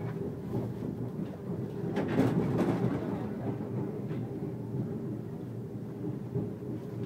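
Passenger train running, heard from inside the carriage: a steady low rumble of wheels on the rails, briefly louder about two seconds in, with a few faint clicks.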